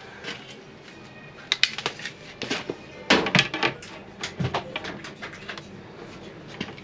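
Scattered knocks and clatters of objects being handled in and around a kitchen sink cabinet.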